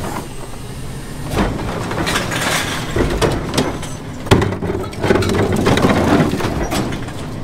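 Autocar ACX rear-load garbage truck's diesel engine running steadily, with knocks, a sharp bang about four seconds in, and a burst of louder clatter for about two seconds near the end.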